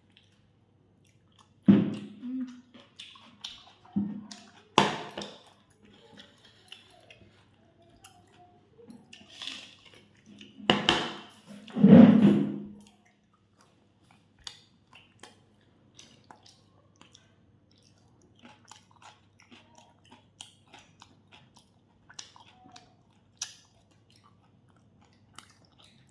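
Close-up chewing and biting of food: a few louder bites in the first half, then many faint, quick chewing clicks.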